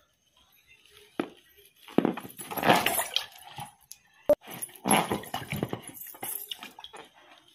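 Rubber balloons squeaking and squealing as bare feet press and rub on them, in several bursts, with silver anklet bells jingling. There is a short sharp click about four seconds in.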